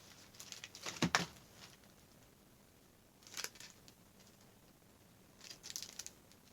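Short clicks and taps of small items being handled and set down: a few sharp clicks, the loudest about a second in, then more around three and a half and near six seconds.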